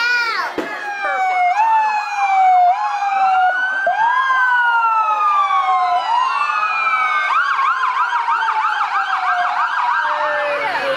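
Emergency-vehicle sirens wailing, several overlapping, their pitch sweeping slowly up and down; in the last few seconds one switches to a fast yelp of about three rises a second.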